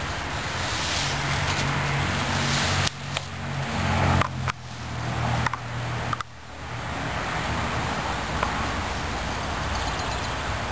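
A motor vehicle's engine hums low and steady through the first half, then fades. Underneath, a push broom's bristles scrape across concrete.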